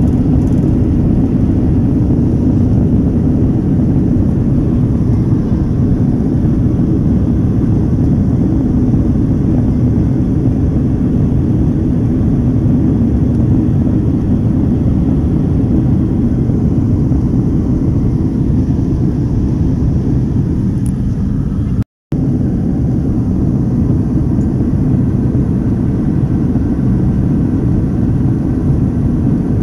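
Steady low-pitched cabin noise of an airliner in flight, heard from inside the cabin. It cuts out for a split second about two-thirds of the way through.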